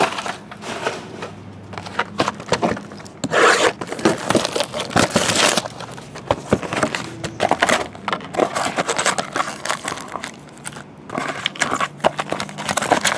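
Cardboard card boxes and foil packs being handled and slid across a table: irregular rustling and scraping with short clicks and knocks. Clear plastic wrap crinkles near the end.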